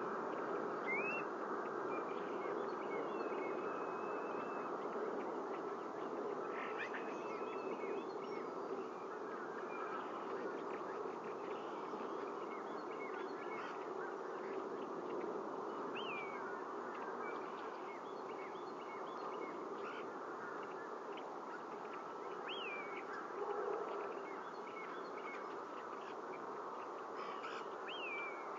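Steady low droning noise from the outdoor nest-camera microphone. Over it come a few short, high bird calls that fall in pitch: about a second in, then around sixteen and twenty-two seconds in, and once more near the end.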